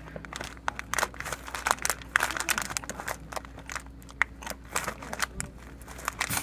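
Raindrops ticking and crackling irregularly on a hard surface close to the microphone during a thunderstorm, over a faint steady low hum.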